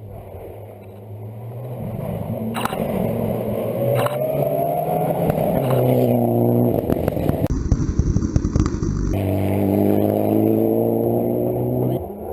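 Rally car engine heard from inside the car under hard acceleration, its pitch climbing steadily through a gear. About seven and a half seconds in comes a loud rough rumble for about a second and a half, then the engine climbs again in the next gear and drops off near the end, with a couple of sharp knocks early on.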